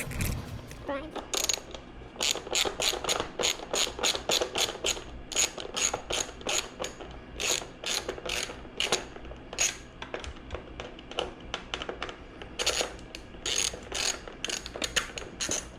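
Ratchet wrench clicking in quick runs, about three to four clicks a second, as a fastener is backed out. The clicks stop for a few seconds past the middle, then start again.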